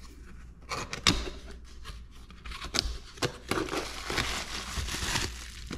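Cardboard reel box being opened by hand: irregular scraping, sliding and tapping of the lid and inner tray, with packaging crinkling. A sharp tap about a second in is the loudest sound.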